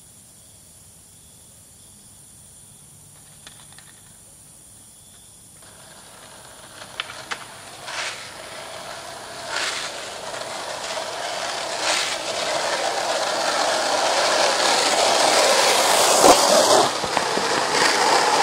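Skateboard wheels rolling on asphalt. After a faint hiss in the first few seconds, the rolling grows steadily louder as the board comes closer, with a few sharp clicks along the way.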